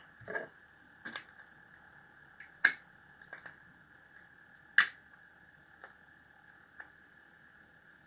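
Scattered clicks and knocks from working a stuck brass piece loose from a melted 3D-printed plastic part by hand, with the sharpest knocks about two and a half and five seconds in. A faint steady high hum runs underneath.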